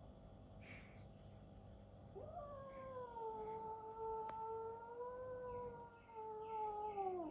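Orange tabby kitten giving one long, drawn-out yowl that starts about two seconds in, rises at the start, holds nearly level and sags away as it ends. It is a defensive threat call at the plush toy cat it faces with its back arched.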